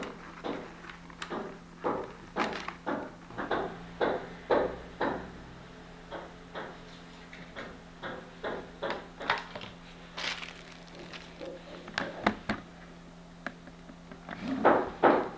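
Hands handling a plastic modular motorcycle helmet on a table: irregular taps, knocks and clicks from the shell and visor as it is turned and touched, with a louder flurry near the end.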